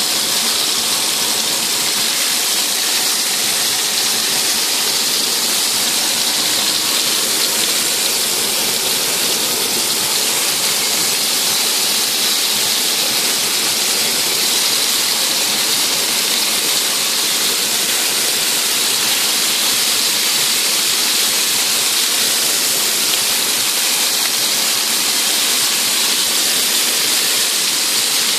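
Vegetable skewers frying in hot oil in a pan, a steady sizzle.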